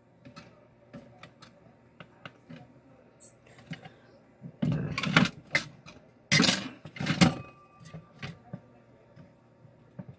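Light clicks and taps of small tools working on a mobile phone's circuit board, scattered irregularly, with two louder noisy bursts of about a second each around the middle.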